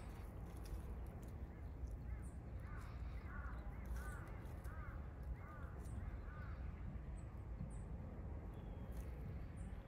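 A bird calling in a run of about nine short calls, each rising and falling in pitch, coming a little over half a second apart and fading out past the middle. A steady low rumble lies underneath.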